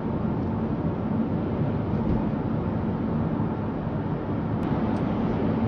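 Steady road and engine noise of a car cruising, heard inside the cabin through a dashcam microphone, with one small click about four and a half seconds in.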